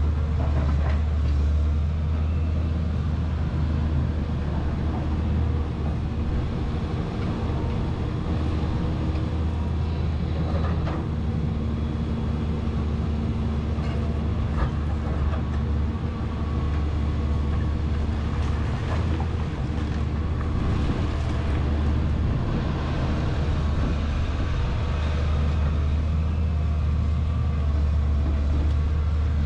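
Caterpillar 320C excavator's six-cylinder diesel engine running steadily under load as it digs rubble and swings to load a dump truck, with scattered knocks and clatters of debris hitting the bucket and truck bed.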